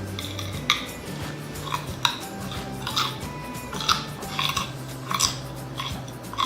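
A person chewing raw carrot: crisp, irregular crunches about twice a second.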